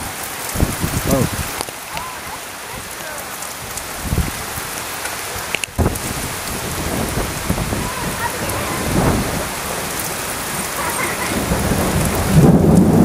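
Steady rain falling, with a few low rumbles.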